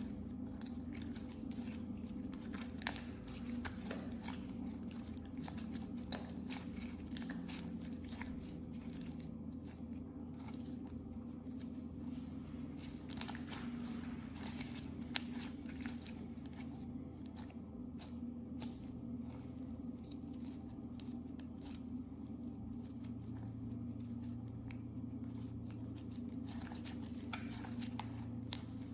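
Hands squishing and kneading clear slime, making a stream of small wet clicks and crackles, with a few sharper pops. A steady low hum runs underneath.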